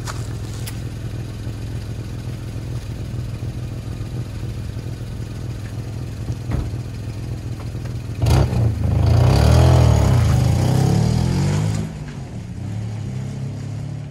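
Suzuki Swift engine idling steadily. About eight seconds in it revs up as the car pulls away, the engine note rising and falling for a few seconds, then fading as the car drives off.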